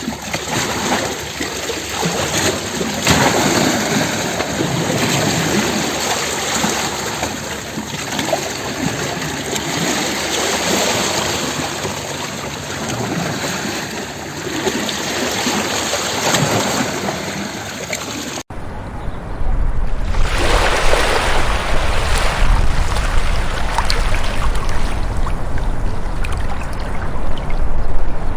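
Sea waves washing and splashing against rocks in continuous, surging surf. About two-thirds of the way through, the sound cuts abruptly to another stretch of surf with a deep low rumble beneath it.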